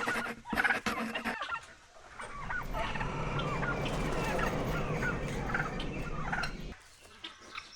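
A flock of poultry calling over one another in a dense, overlapping chorus of short calls, after about a second and a half of clattering at the start.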